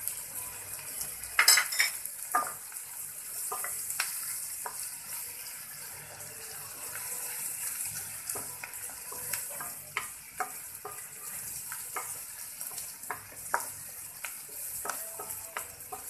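Bitter gourd, onion and rohu fish roe frying in oil with a steady sizzle, while a wooden spatula stirs and knocks against the pan in many short clicks. A louder clatter comes about a second and a half in.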